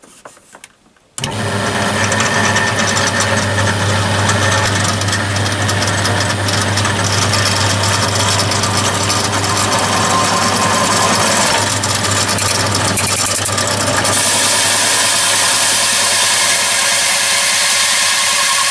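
Bench drill switched on about a second in, running at 620 RPM as a 25 mm HSS hole saw cuts into 1 mm oiled mild steel. It makes a steady motor hum mixed with the noise of the saw cutting the metal.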